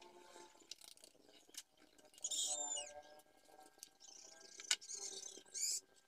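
Pencil scratching marking lines on wooden boards along a steel try square, in several short strokes with squeaky edges, and a sharp tap of the square on the wood about three-quarters of the way through.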